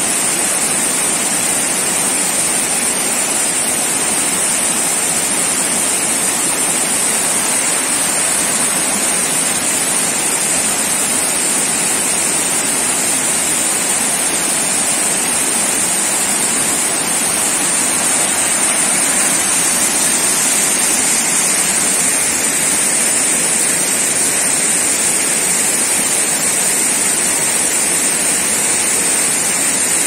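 Elephant Falls, a two-tier mountain-stream waterfall, rushing steadily close by: an even, unbroken hiss of falling water.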